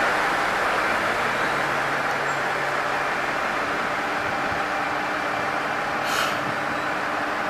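Diesel railcar's engine running steadily as the car draws up and stands at the platform. A short hiss of air comes about six seconds in.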